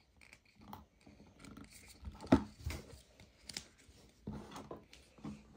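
Hands handling a small plastic toy case on a tabletop while a sticker is pressed on: scattered rubbing and light clicks, with one sharp knock a little over two seconds in.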